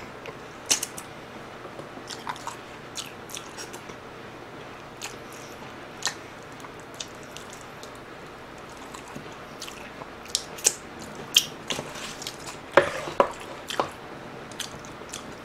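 Close-up chewing and biting of sauce-coated fried chicken, with scattered sharp wet mouth clicks and crunches. The clicks come thicker in the last few seconds.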